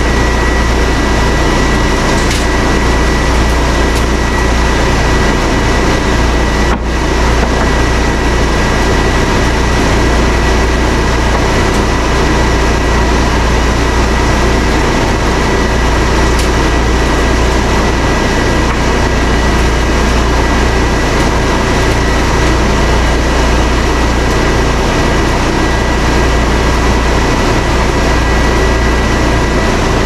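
Wood-Mizer bandsaw sawmill and Baker edger running at the same time: a loud, steady machine noise with a low hum and a constant high whine.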